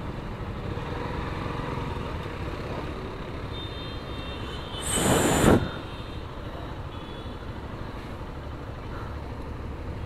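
Street traffic with a steady low engine rumble, and a short loud hiss about five seconds in.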